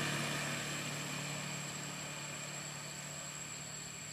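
A motor vehicle on the road, its engine and tyre noise fading steadily as it moves away, over a steady low engine hum.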